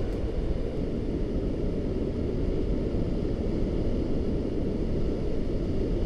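Steady low rush of breaking surf washing over shore rocks.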